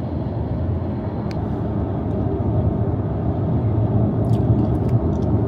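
Steady road and tyre rumble with wind noise inside an electric car cruising at motorway speed, with no engine note.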